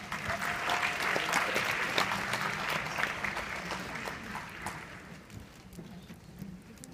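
Audience clapping, loudest for the first three seconds or so and then dying away.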